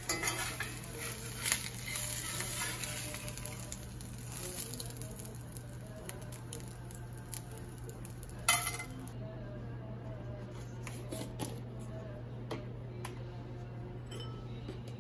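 A spatula scraping and knocking in a cast-iron skillet on a lit gas burner as a fried egg is lifted out, with one sharp knock a little past halfway. After that come only a few light taps of a spoon in a bowl over a steady low hum.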